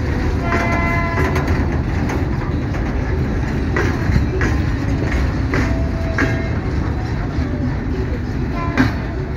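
Freight train hopper wagons rolling slowly past close by: a steady low rumble with occasional clacks of wheels over rail joints. A short high tone sounds about half a second in.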